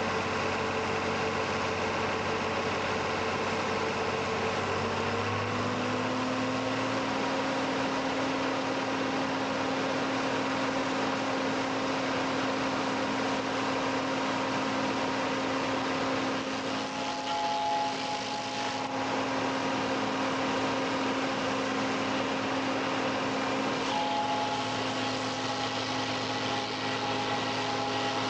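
Tractor engine running a Riko PRO 150 stump grinder, a steady machine drone whose pitch steps up about five seconds in as the engine speed is raised, then holds.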